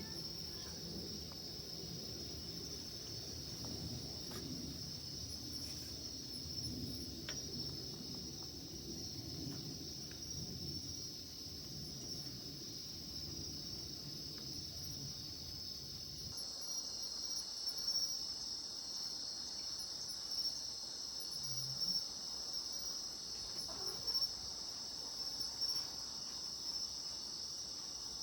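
Steady, high-pitched chirring of insects, with a low rumble underneath that cuts off about sixteen seconds in.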